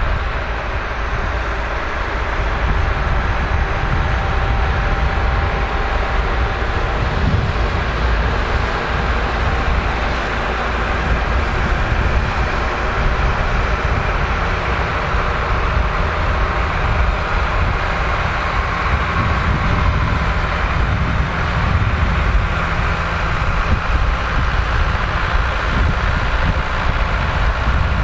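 Massey Ferguson tractor engine running steadily under load while pulling a plough.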